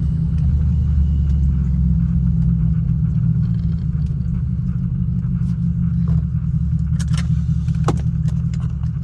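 Jaguar XJR's supercharged V8 idling steadily with a deep, even exhaust rumble. A few sharp clicks come near the end.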